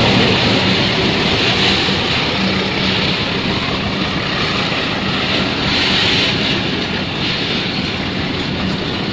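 Bogie oil tank wagons of a freight train rolling past close by: the steady rumble and rushing noise of steel wheels running on the rails, easing slightly as the wagons go by.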